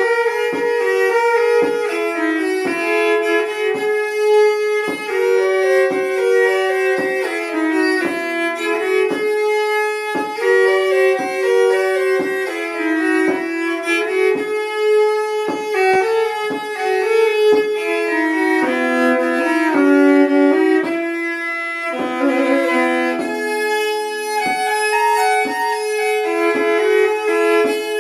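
Hardanger fiddle played solo: a lively Norwegian folk tune bowed in double stops over a held drone note, with regular soft taps keeping the beat.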